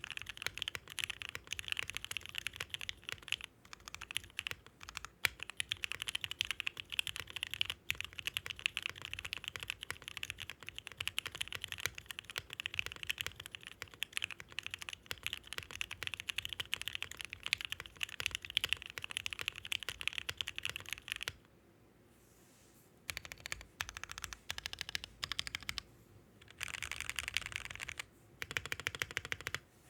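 Fast continuous typing on a Bakeneko mechanical keyboard fitted with Gateron Ink linear switches (lubed, filmed, with lubed slider rails) mounted in an FR4 full plate, under GMK 8008 keycaps: a dense run of keystroke clacks. The typing stops for about a second and a half about two-thirds of the way through, then resumes with a couple of brief breaks near the end.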